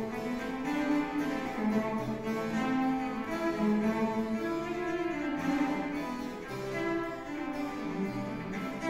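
Cello bowed, playing a melody of notes that move from one to the next.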